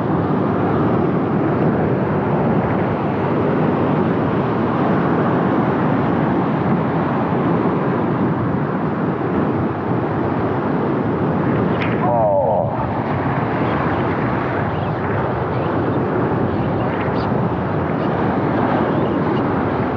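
Steady rushing of wind and surf on the microphone on an exposed rocky shore. About twelve seconds in there is one brief wavering call.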